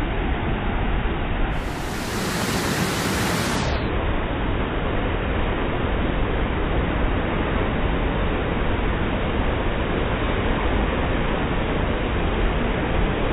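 Flash-flood water, thick with mud, rushing steadily down a sandstone canyon and pouring over the rock ledges.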